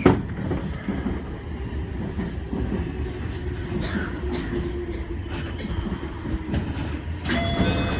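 Keio Line electric train running on the rails, heard from inside the front car: a steady rumble with wheel clicks over the rail joints. There is a sharp knock right at the start, and a burst of noise a little after seven seconds followed by steady high tones.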